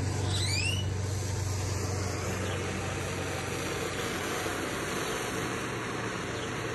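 Handheld propane torch burning with a steady hiss, its flame heating a steel bolt to blacken it in oil afterwards.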